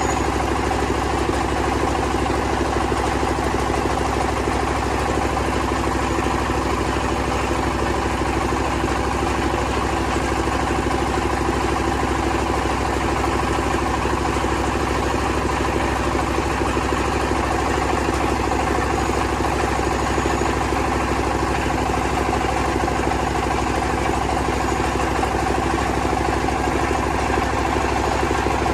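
Rice milling machine running steadily, a constant mechanical drone with several steady tones that does not change.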